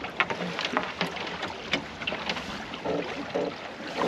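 Water splashing and lapping against the hull of a small wooden sailing dinghy under way, in many short, irregular splashes over a steady wash.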